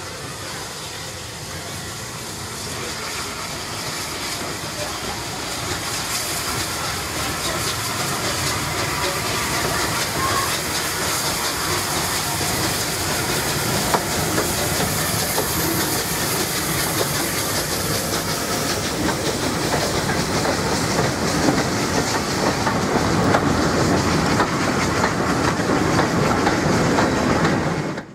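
Steam-hauled train with Southern Railway West Country class Pacific 34007 running past, with steam hissing and the wheels and wagons rattling on the track; it grows steadily louder as the train draws past, with a few sharp clicks.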